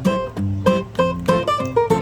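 Background music: a bright plucked-string tune, picked at about four notes a second over a bass line.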